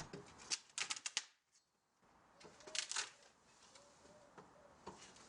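Wooden pallet being levered apart with a steel pry bar: scattered short cracks, clicks and creaks of the boards and nails giving way, in small clusters with pauses between.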